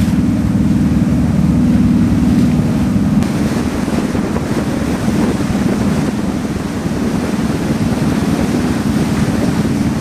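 Boat's engine drone with water rushing past the hull and wind buffeting the microphone. About three seconds in the sound changes abruptly, and the engine hum gives way to rougher wind and water noise.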